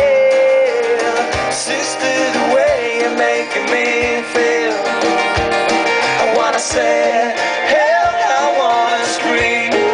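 Live band music: a man singing over strummed acoustic guitar, with a low bass drum beat about every second and a half and cymbals.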